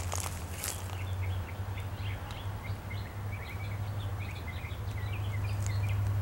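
Small birds chirping in quick, repeated short calls over a steady low hum.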